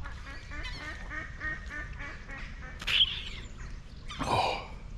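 Duck quacking in a quick run of short calls, about four or five a second, lasting some two and a half seconds. A brief, sharper sound follows about three seconds in, and a short breathy sound just after four seconds.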